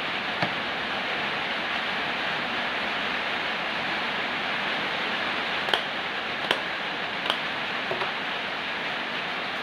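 Steady hiss with a few light, sharp clicks: one near the start, then three about a second apart in the second half, and a fainter one after them.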